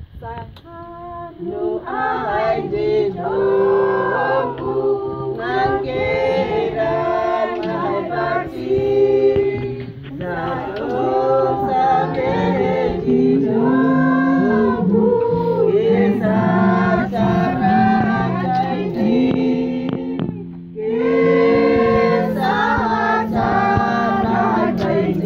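A group of adults and children singing together to an acoustic guitar, in sung phrases with a short break about twenty seconds in.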